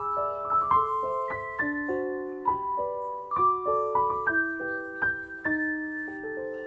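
Background piano music: gentle struck chords changing about every half second, with the last chords left ringing near the end.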